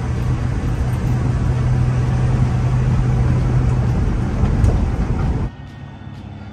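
1970 Ford Club Wagon van driving, heard inside the cab: a steady low engine hum under loud road and wind noise, the hum easing about four seconds in. About five and a half seconds in, the sound cuts sharply to a quieter outdoor scene, where a low engine hum slowly grows louder.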